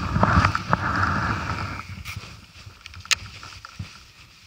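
Small inflatable boat moving across calm water: a rush of noise with a few sharp knocks, loudest in the first two seconds and then fading.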